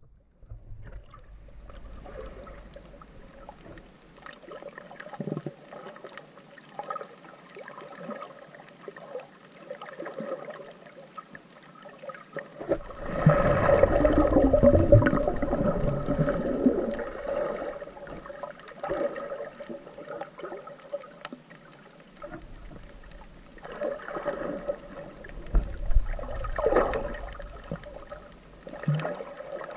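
Water gurgling and sloshing around a GoPro filming underwater, with louder churning from about 13 seconds in and more swells a little later.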